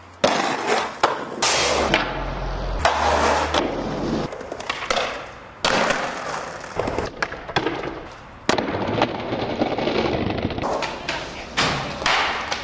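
Skateboard wheels rolling on hard ground, with sharp pops, clacks and landing impacts of the board during tricks. The sound changes abruptly several times as short clips are cut together.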